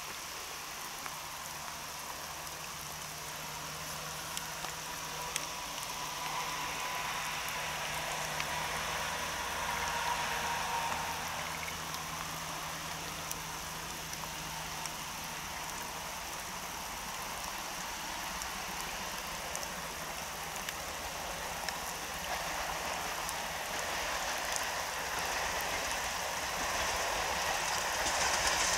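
Steady rain falling, with the C12 66 steam tank locomotive working its train in the distance, the train growing slowly louder toward the end.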